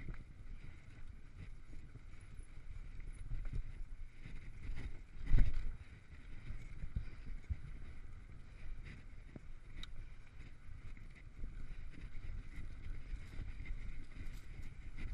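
Mountain bike rolling fast along a dirt singletrack: a steady rumble from the tyres and frame with many small knocks and rattles over bumps, and wind on the microphone. A heavy thump about five seconds in, as the bike hits a bump.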